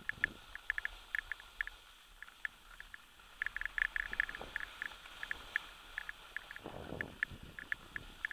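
Skiing on groomed snow: skis sliding with a low hiss, a brief louder scrape about seven seconds in, and many irregular sharp clicks and rattles throughout.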